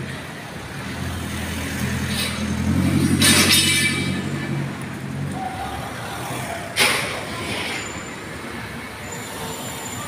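Motor vehicle engine running close by, a low hum that swells for a few seconds with a burst of hiss near its loudest point, then fades. A single sharp knock about seven seconds in.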